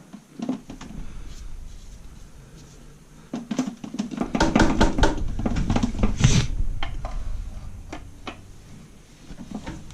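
Metal hand tools and a bolt clinking, tapping and scraping against a manual transmission case, as a string of sharp knocks that grows denser and louder in the middle.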